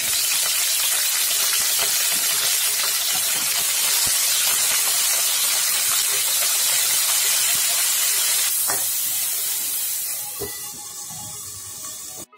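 Cauliflower florets sizzling in hot oil in a kadai: a loud, steady hiss that softens near the end, with two light knocks in the last few seconds.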